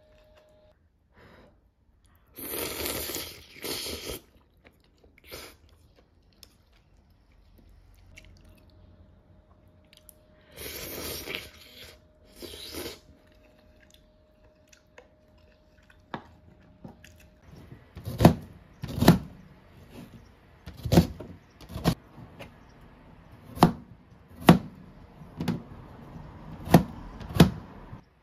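Two bursts of crunching from bites into crisp toasted bread pizza, then a kitchen knife knocking on a plastic cutting board about once a second, some strokes in quick pairs.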